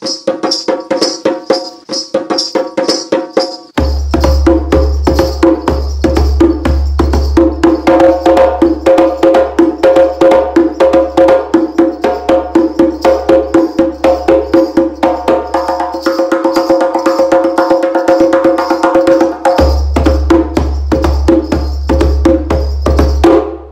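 Percussion-driven intro music: fast, regular hand-drum strokes over sustained pitched notes. A deep bass comes in about four seconds in, drops back around two-thirds of the way through and returns near the end, before the music stops just short of the close.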